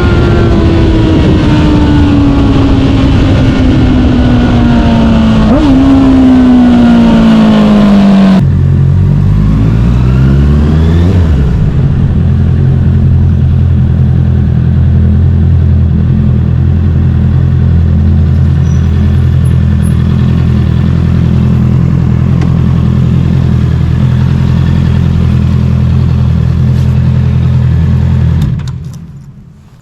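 Honda CBR650R's inline-four engine through an Akrapovic full-system exhaust with the inner silencer removed. For the first eight seconds the engine note falls steadily as the bike slows, with wind noise. After an abrupt change it settles into a steady idle, which fades out near the end.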